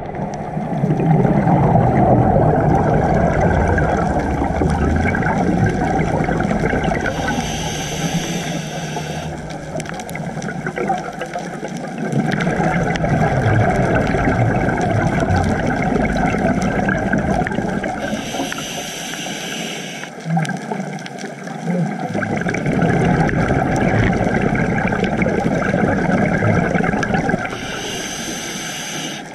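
Scuba diver's regulator breathing heard underwater: long stretches of bubbly exhalation, broken three times by a short hissing inhale about every ten seconds.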